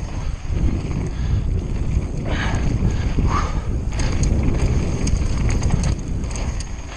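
Conway WME mountain bike descending a downhill trail: wind buffets the action camera's microphone over a steady rumble of tyres on rough ground, with rattling clicks from the bike. Two brief louder scrapes come about two and a half and three and a half seconds in.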